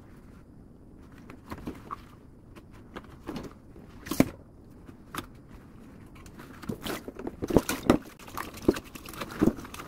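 Dishes and a plastic sink splash guard handled in a kitchen sink: scattered light knocks and clatter. There is one sharp knock about four seconds in, and the clatter grows busier over the last three seconds.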